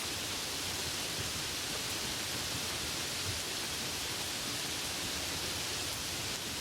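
Rain falling steadily, an even hiss with no distinct drops or thunder.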